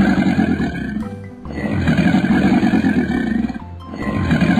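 Cartoon crocodile roar sound effect: a rough, low roar about two seconds long, played again and again with short breaks about a second in and near the end, over children's background music.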